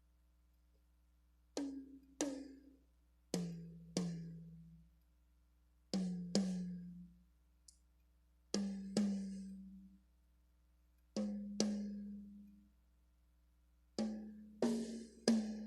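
RB Drums Compact Line rototoms with double-ply film heads struck in pairs with pauses between, each hit ringing with a short pitched decay; the pitch moves from group to group as the drums are retuned, starting highest and then dropping lower.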